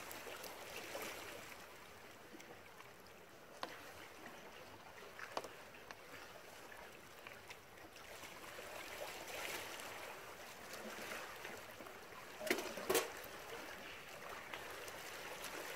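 Steady rush of moving water, with a few sharp clicks or knocks scattered through it and two louder ones close together near the end.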